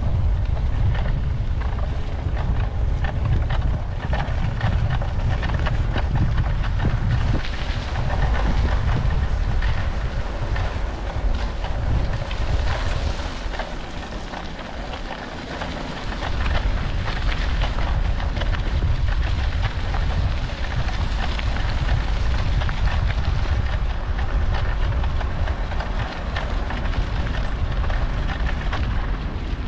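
Wind buffeting the microphone of a camera on a moving bicycle, a heavy low rumble that eases for a couple of seconds about halfway through, over a steady hiss of tyre and road noise.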